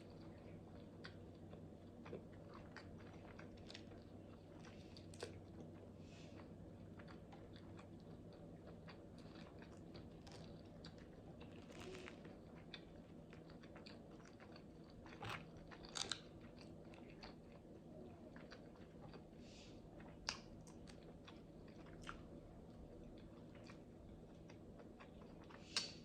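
Quiet chewing and mouth sounds of a person eating close to the microphone, with a few sharper crunchy clicks scattered through, over a faint steady hum.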